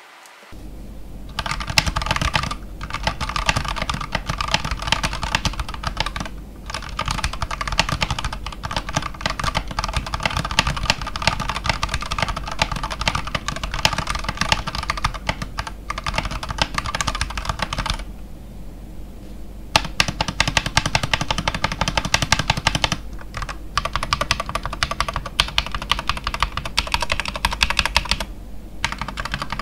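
Typing on an Akko 5108 mechanical keyboard: fast, continuous keystrokes with brief pauses and one longer pause about 18 seconds in.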